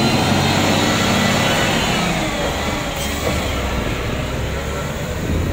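Heavy diesel engine of a snowplough truck running close by: a loud, steady low drone.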